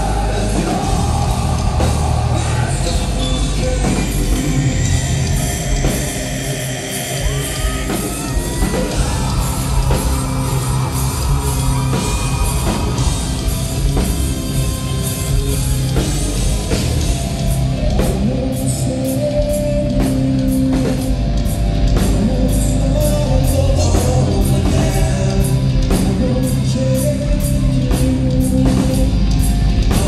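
A hard rock band playing live: heavy electric guitars, bass, drums and a male singer. From about halfway, the drums hit a steady beat of about two strikes a second.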